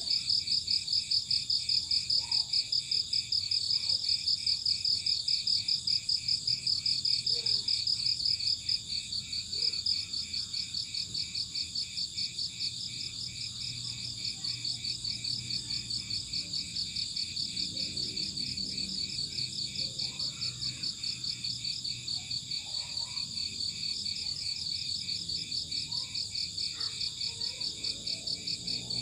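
Crickets chirping in a steady, rapid, evenly pulsing trill, a little quieter from about nine seconds in.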